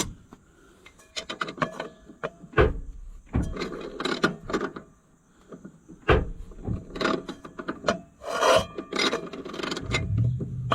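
Hand tools working a stuck nut on the tractor shaft: irregular metal clicks, clanks and rasping scrapes. The nut turns stiffly because its threads are clogged with paint.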